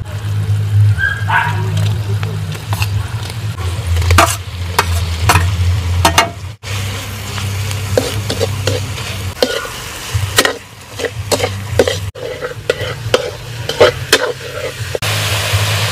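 Metal ladle stirring and scraping in a wok, with repeated clacks against the pan over sizzling, as grated raw mango mixed with shrimp paste fries with onions. A steady low hum runs underneath.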